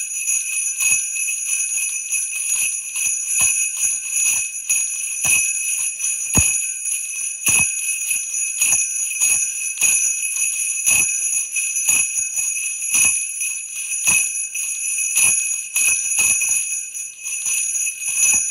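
Sleigh bells being shaken in a steady rhythm, jingling continuously with a sharp accent about once a second.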